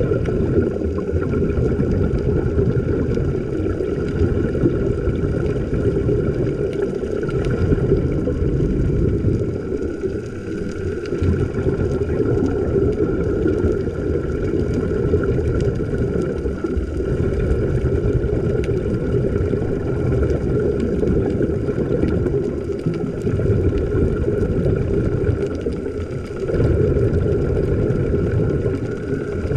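Steady, muffled low rumble of water recorded underwater, with faint steady hum tones above it.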